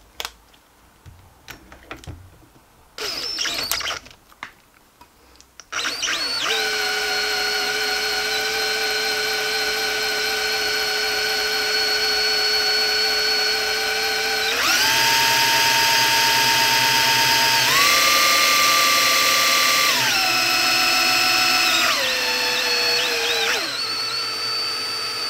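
Electric drill spinning the crankshaft of a hand-built 90cc V6 model engine, turning it over unpowered to check that everything runs smoothly. After a few clicks and a short first burst, the drill runs with a steady whine from about six seconds in. It steps up in pitch twice as the drill speeds up, then back down in steps. The engine turns over without trouble.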